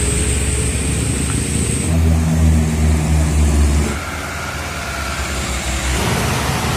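Diesel truck engines pulling loaded trucks through an uphill bend, heard in short segments that change about every two seconds. The loudest is a deep, steady engine drone in the middle.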